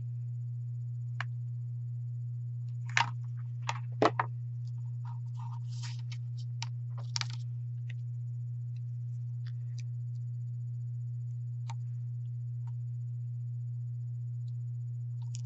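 Hands working a hot glue gun and a burlap craft piece: a few sharp clicks and taps about three to four seconds in, then soft rustling and scattered light ticks, over a steady low hum.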